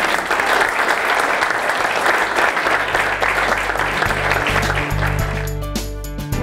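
Audience applauding at the end of a talk. The clapping fades out near the end as background music comes in a little past halfway.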